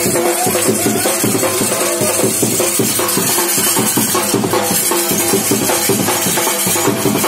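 A desi dance tune with a steady, driving drum beat.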